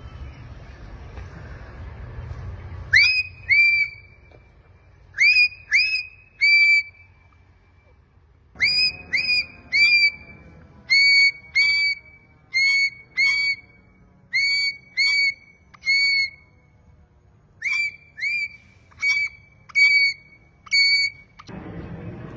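Parrot whistling: bouts of two to four short whistles, each sweeping quickly up and settling on a brief held note, repeated over and over.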